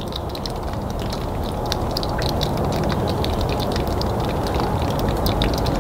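Outdoor background rumble and hiss that slowly grows louder, with many light scattered crackling clicks.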